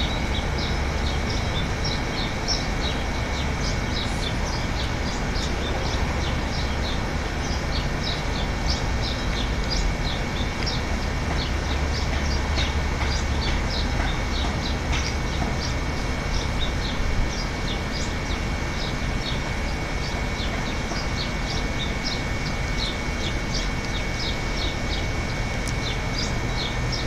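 Many birds chirping in quick, short high notes throughout, over wind rumbling on the microphone. A faint, steady high tone runs underneath.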